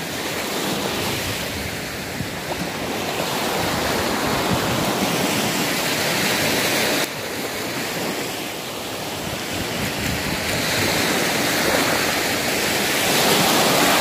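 Small sea waves breaking and washing up on a sandy beach: a steady rush of surf that swells and eases. It drops off suddenly about halfway through and is loudest near the end.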